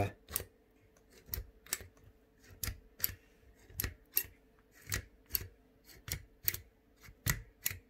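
Keys of a 3D printed Enigma machine keyboard pressed one after another, each press snapping the key's microswitch with a sharp click, about two or three clicks a second, some in quick press-and-release pairs. This is a test of whether every key's microswitch arm clicks.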